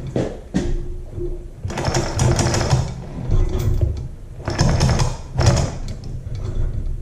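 Manual chain fall hoist lowering a cylinder head: its chain runs through the hoist with a fast rattling clatter in bursts of about a second, twice, with pauses between.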